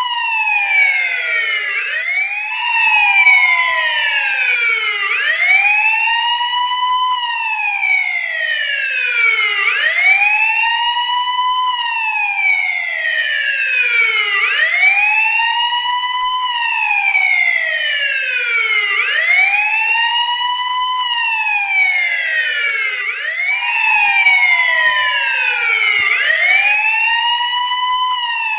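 Police siren wailing: each cycle rises quickly in pitch and falls away more slowly, repeating about every two and a half seconds, with overlapping sweeps layered out of step.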